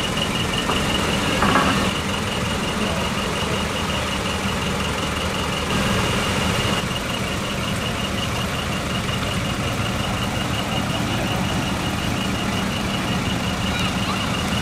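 Diesel engine of a decorated box truck running as it pulls away slowly, under a rapid, high electronic beeping from a truck's warning beeper that drops in level about seven seconds in. A short louder burst comes about a second and a half in.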